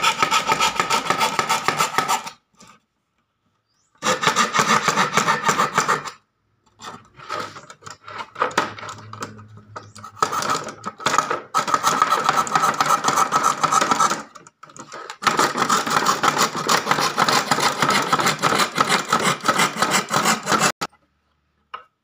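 Hand coping saw cutting through a wooden board, quick back-and-forth strokes in several bouts with short pauses between, lighter and more broken in the middle, stopping about a second before the end.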